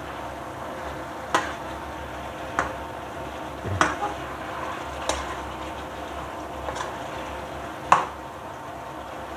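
A metal ladle clanking and scraping against a wok about six times while pork adobo is stirred, the loudest clank about eight seconds in, over a steady sizzle from the simmering pan.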